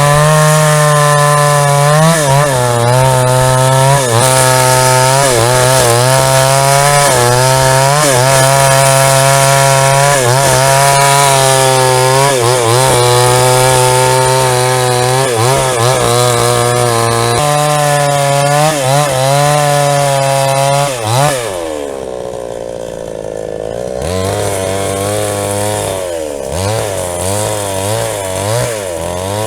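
JCK chainsaw with a 22-inch bar ripping a log into planks, the engine at full throttle with its pitch wavering under the load of the cut. About 21 seconds in the revs drop away to a lower, quieter running, then pick up again about three seconds later.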